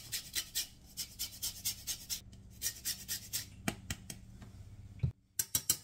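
Lemon being zested on a long stainless-steel rasp grater: quick, repeated scraping strokes, about three a second, with a brief break near the end.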